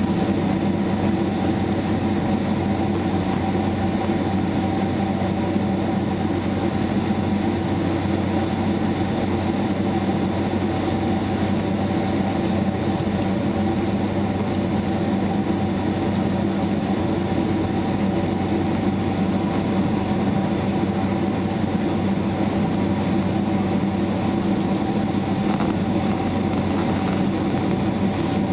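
Steady cabin noise of a jet airliner in motion: a rush of air with a low, even hum and a few held tones from the engines.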